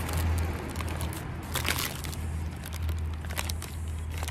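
Paper takeaway bag rustling and crinkling as a hand rummages in it, in a few irregular crinkles, the loudest about a second and a half in, over a steady low rumble.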